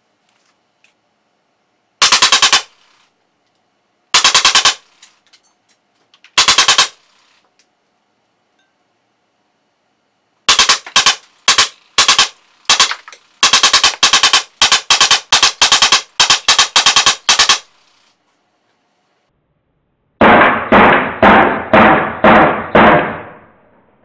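Drozd Blackbird CO2 BB gun firing in full-auto bursts, each a rapid string of shots: three short bursts about two seconds apart, then a quick run of about a dozen short bursts. Near the end comes a longer, denser stretch of rapid pulses with a duller sound.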